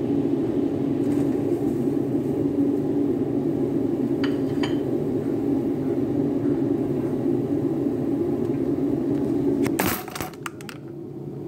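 Cut vegetables tipped into an aluminium pot of water on a gas stove, with two light clinks of the dish against the pot about four seconds in, over a steady low rumble. Near the end the rumble drops away and a quick run of clicks and knocks follows.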